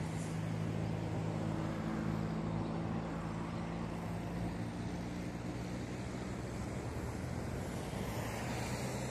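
A distant engine drones steadily over a wide rush of wind noise, growing fainter after about five seconds.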